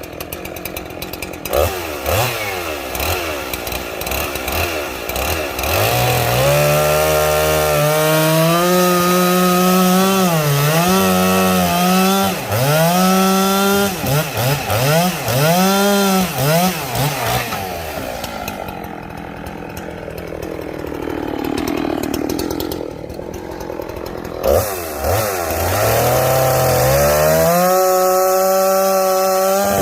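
Two-stroke gas chainsaw cutting sweetgum firewood slabs. It runs at high revs in long stretches, with the pitch dipping and rising between cuts. Past the middle it drops to idle for several seconds, then revs back up and holds high.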